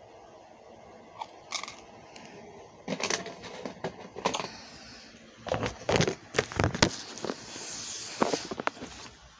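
Irregular clicks, clinks and rustles of small gold-toned metal beads and charms being handled over a plastic compartment box, starting about a second in and growing busier in the second half.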